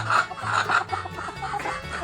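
Background music with a steady bass line, with hens clucking over it during the first second.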